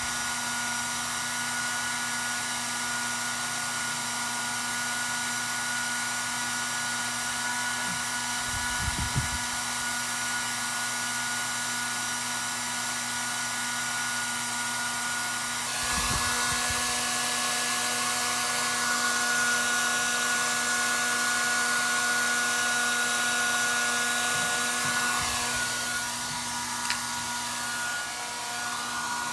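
Small electric blower running steadily with a whining motor tone and rushing air, getting louder and airier about halfway through; a few soft knocks from handling.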